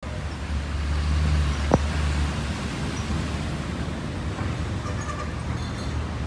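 Steady low rumble of a vehicle engine with road noise, and a single sharp click about a second and a half in.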